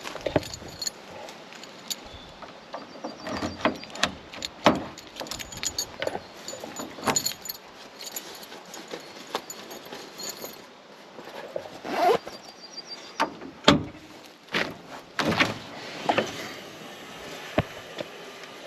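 Irregular knocks, clanks and rattles, about a dozen, spread unevenly, with a short rising squeak about twelve seconds in; no engine is running.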